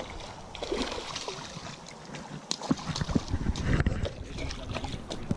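Rumble and knocks from a body-worn camera being jostled, with scuffing steps on a dirt and gravel bank, busier in the second half.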